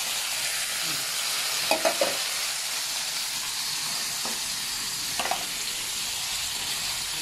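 Boiled pork hock pieces sizzling steadily in hot oil in a frying pan with onion and garlic, being sautéed. A few short knocks of the stirring utensil against the pan, about 2, 4 and 5 seconds in.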